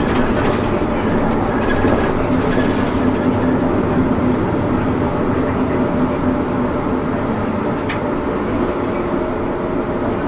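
Kyoto City Bus heard from inside the cabin, its engine running at a steady pitch with road and body noise, and one sharp click about eight seconds in.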